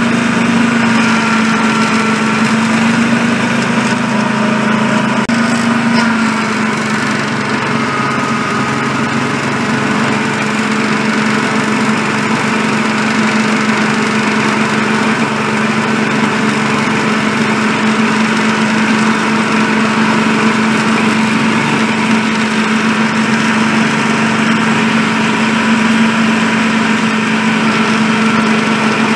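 7¼-inch gauge miniature works locomotive running steadily along the track, its motor holding a constant pitched hum.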